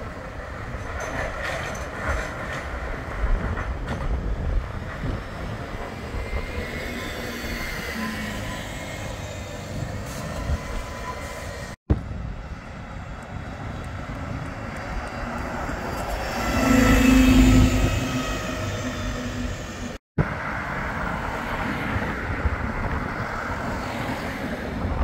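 Bombardier Flexity 2 tram running along street track amid road traffic, with faint whining tones rising and falling. The sound breaks off abruptly twice; in the middle stretch a road vehicle passes close by, the loudest part.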